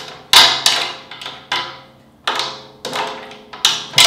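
Drum key turning the tension rods on a rack tom: a string of sharp, irregular metallic clicks and taps, each ringing briefly.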